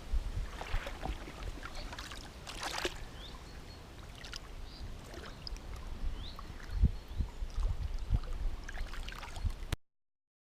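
Water sloshing and splashing, with a low rumble on the microphone and scattered small knocks; the sound cuts off abruptly near the end.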